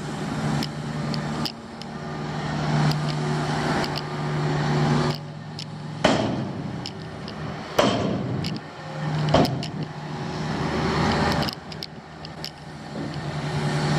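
Heavy diesel construction machines running: a steady engine drone that fades out and comes back, with swells of noise and scattered sharp clicks.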